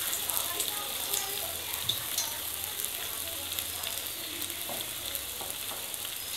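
Battered chicken wings deep-frying in hot oil in a karahi over a low gas flame: a steady sizzling hiss with scattered small crackles as the freshly added pieces bubble.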